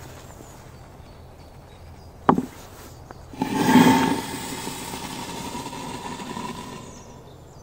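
Joker Fireworks 'Rose' ground firework going off: a sharp click about two seconds in, then a sudden hiss with a thin steady whistle that starts loud and burns down over about four seconds.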